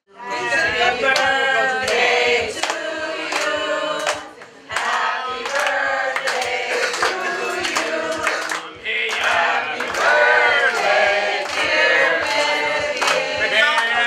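A group of people singing together and clapping along in time, about two claps a second, with a brief pause about four and a half seconds in.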